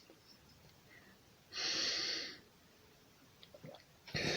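A person breathing in audibly through the nose for about a second, with a sip of water held in the mouth. Near the end comes a breath out through the mouth that fades away. This is a slow breathing routine for stopping hiccups.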